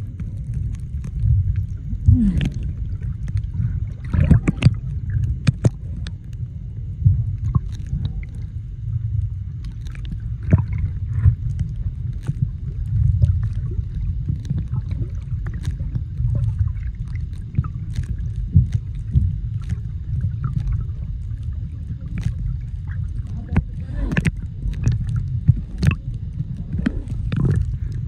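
Muffled underwater sound picked up by a camera held below the surface while snorkeling: a steady low rumble of water moving against the housing, with scattered short clicks and crackles.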